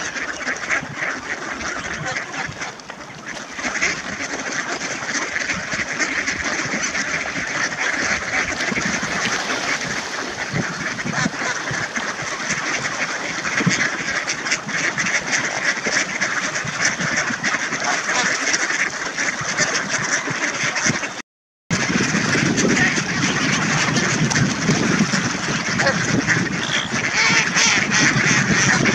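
A large crowded flock of mallards quacking all at once, a dense, unbroken chorus of overlapping calls. It cuts out for a moment about three-quarters of the way through.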